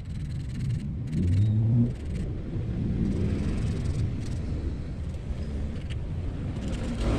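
A low rumble, louder with a humming note for about a second near the start, under faint scratching of a fishing hook's point being rubbed on sandpaper to sharpen it.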